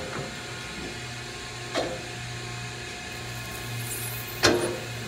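Electric branding iron held against a Black Angus heifer's hide during hot branding, with a steady low hum. Two short knocks, the louder one about four and a half seconds in.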